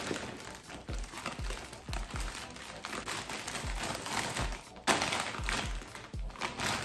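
Plastic packaging crinkling and rustling as a garment in a plastic bag is handled and packed into a poly mailer, with irregular sharper crackles. Background music with a steady bass beat runs underneath.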